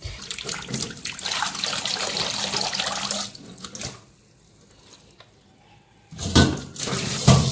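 Kitchen tap running into a sink for about three seconds, then stopping. Two heavy thumps follow near the end.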